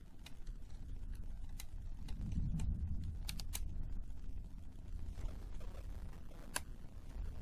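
Irregular small, sharp clicks and taps of a plastic pry tool against a laptop's plastic top case and connectors, several in quick succession about three and a half seconds in, over a low rumble.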